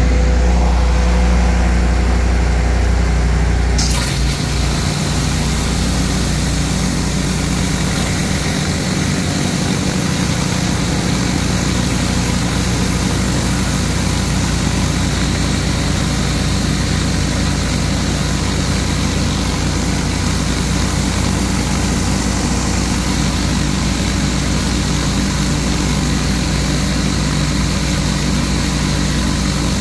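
Hot-water pressure washer's engine (a Honda iGX800 V-twin on a 10 gpm, 3000 psi skid unit) running steadily under load. About four seconds in, a steady hiss of high-pressure spray from a Whisper Wash Mini Mondo 31-inch surface cleaner joins in as it is pushed over concrete.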